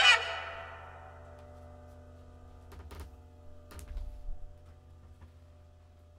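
The last note of a jazz saxophone record played through Altec 604E loudspeakers dies away, leaving a steady low hum from the playback system. A few faint clicks and thumps come through about three and four seconds in.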